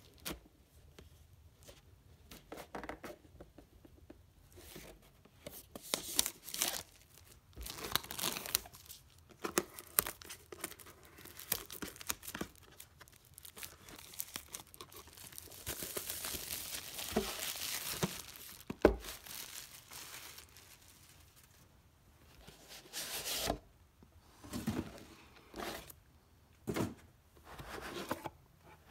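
Clear plastic shrink wrap being split and peeled off a cardboard box: short bursts of crinkling, a longer stretch of steady tearing and crinkling around the middle, one sharp knock just after it, then more crinkles near the end.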